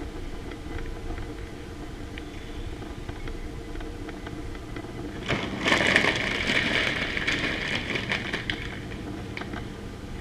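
A steady low hum, with about three seconds of crackling rustle from kitchen handling that starts about five seconds in and is the loudest sound.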